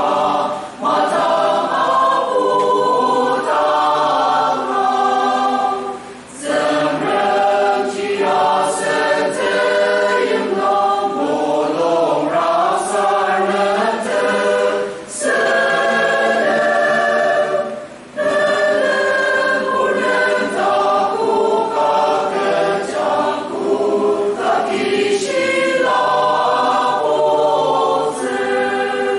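A large mixed choir of men's and women's voices singing together, with a few brief pauses between phrases.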